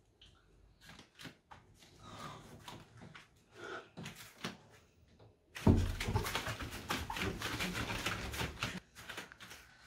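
People moving in a small room: soft footsteps and rustling with faint breathy sounds. About halfway in, a sudden, much louder stretch of rapid shuffling and scuffing sets in.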